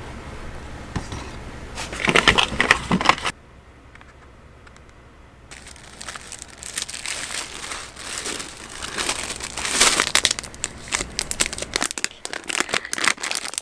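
Paper and tissue crinkling and rustling close up. A paper shopping bag is handled loudly for about a second. After a short quieter gap, tissue paper is unfolded from around a box, and a plastic-wrapped box is handled near the end.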